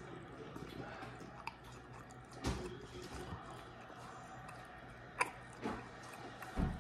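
A person chewing a mouthful of a bread-wrapped beef hot dog, with scattered wet mouth clicks. A few louder low thumps come about two and a half seconds in and again near the end.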